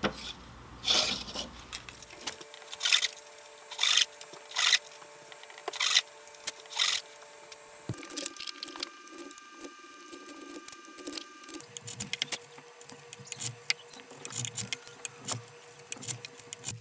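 Chisel paring thin wooden kumiko pieces to length in a trimming jig: sharp woody cuts, about one a second at first, then quicker and lighter ones from about eight seconds in. Faint steady tones run underneath.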